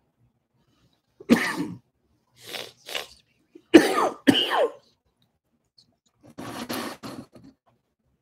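A woman coughing: a loud cough about a second in, a few more between about two and a half and four and a half seconds in, then a rougher, noisier stretch of coughing or throat clearing near the end.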